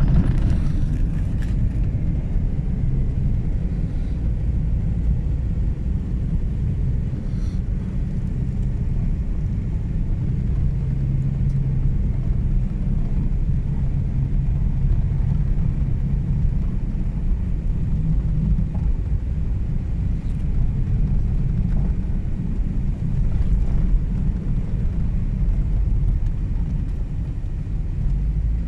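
Car driving along an ice-covered road: a steady low rumble of engine and tyre noise.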